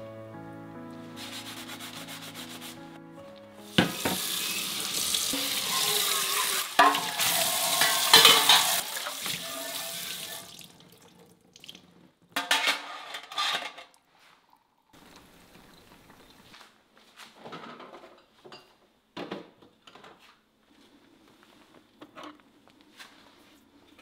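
Soft background music, then water running from a tap into a stainless steel sink for about six seconds as a stainless steel container is rinsed. After it stops, stainless steel containers clink and knock as they are set down, loudest just after the water stops.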